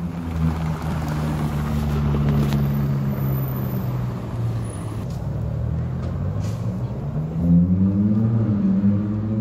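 Red Ferrari supercar's engine running with a low steady note as it drives off over the cobbles, then revving higher near the end.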